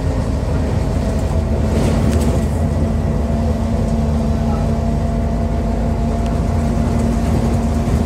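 Scania DC09 9-litre five-cylinder diesel of a double-decker bus running steadily under way, heard from inside the passenger saloon, with a steady engine drone and road rumble.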